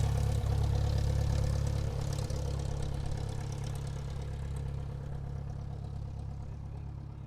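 Airplane taxiing, its engines running as a steady low hum that slowly fades away.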